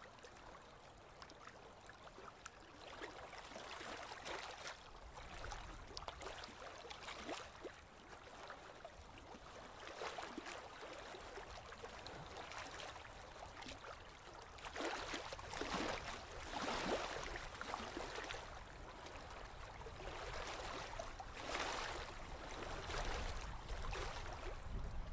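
Small waves lapping and splashing on choppy open water, swelling louder a few times, over a low rumble.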